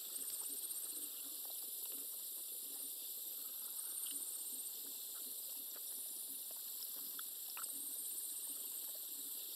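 Night paddock ambience: a steady high hiss, with a brief high, pulsed insect trill about half a second in and again around seven and a half seconds.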